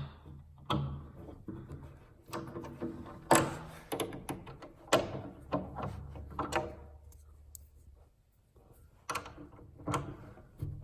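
An Allen key turning and tightening a Festool Domino bed-rail connector, with irregular clicks and knocks of metal and wood handling; the loudest knock comes about three seconds in.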